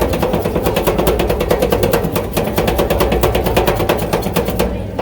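A small engine running close by, a fast, even chug of pulses over a low rumble.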